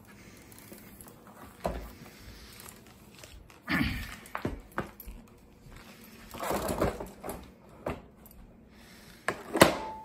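Panasonic upright vacuum being handled and moved with its motor off: a handful of separate knocks, bumps and rustles, the loudest a sharp knock near the end.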